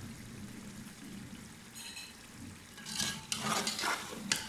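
Chicken masala sizzling in a metal pot as a slotted metal spatula stirs it. The liquid has cooked off, so it is frying in oil. The spatula clinks once about two seconds in, then scrapes loudly against the pot in the second half, with a sharp clink near the end.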